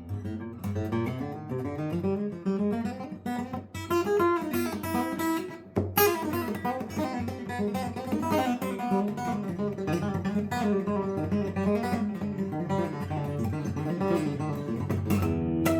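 Guitar playing a fast, continuous run of single notes from the F minor pentatonic scale pulled off to the open strings, with a sharp accented note about six seconds in. Near the end a harder attack lets several notes ring together.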